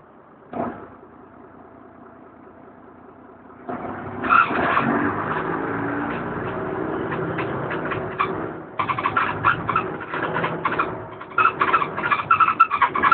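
DAF DB250LF double-decker bus engine heard from inside the lower deck. It idles quietly, with a single knock about half a second in. About four seconds in it comes up loudly as the bus pulls away, and in the last few seconds choppy, uneven noise rides over it.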